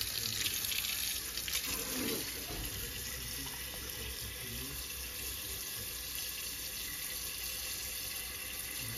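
Kitchen faucet running a steady stream of water into a metal pot of dried pinto beans, filling it to soak the beans.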